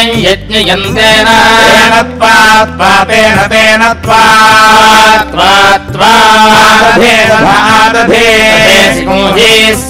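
A voice chanting a Hindu devotional mantra-song in long, melodic phrases over a steady drone.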